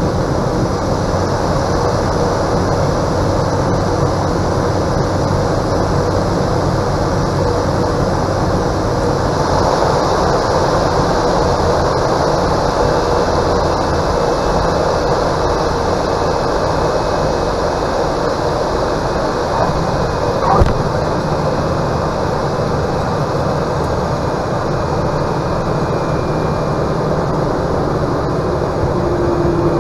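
Cessna 208 Caravan's PT6A turboprop engine and propeller running at low power, with steady wind and airframe noise through the final approach and landing. About twenty seconds in comes a single short thump as the wheels touch down. Near the end a steady hum comes in during the rollout.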